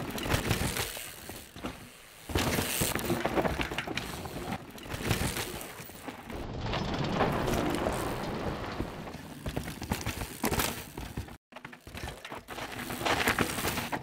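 Downhill mountain bike ridden hard on a dry dirt trail: tyres skidding and crunching through loose dirt and spraying it, with a rattle of sharp clicks and knocks from the bike. The sound swells and drops abruptly several times.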